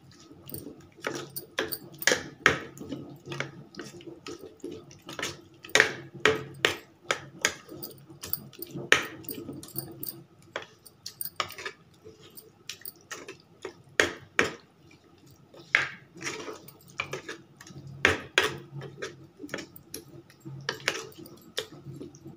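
Steel spoon stirring a mashed tomato and onion chutney in a small kadai, clinking and scraping against the pan in irregular strokes.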